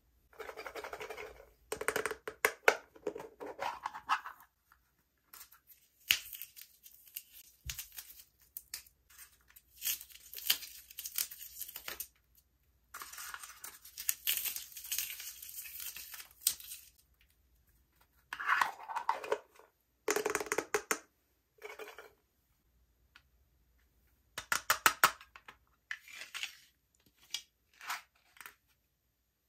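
Slime and makeup being handled by hand in bursts of squishing, tearing and crinkling sounds, separated by short pauses. In the middle there are two longer stretches of hissy rustling, and near the end come quick runs of crackly pops.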